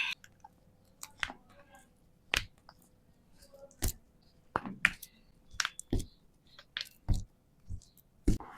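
Joints cracking during a chiropractic adjustment: a dozen or so sharp pops and cracks, irregularly spaced, with quiet between them.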